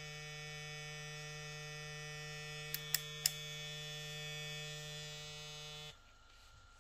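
Kiepe Diavel cordless hair clipper running, its 10,000-RPM motor giving a steady electric hum at one pitch. A few light clicks sound about three seconds in, and the hum stops abruptly about six seconds in.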